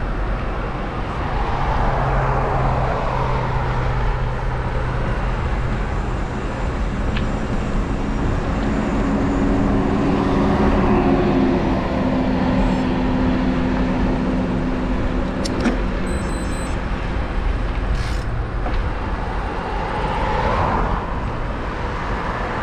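Car driving on a road, with steady tyre and engine noise. The noise swells twice, about two seconds in and again near the end.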